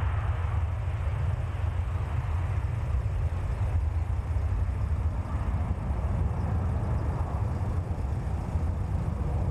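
Airbus A330 twin-engine jetliner at takeoff power, lifting off and climbing away: a steady low jet rumble with a fainter hiss above it.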